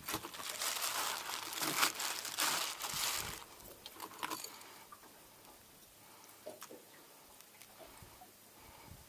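Clear plastic bait bag crinkling as it is handled, for about the first three seconds, then a few faint ticks and taps.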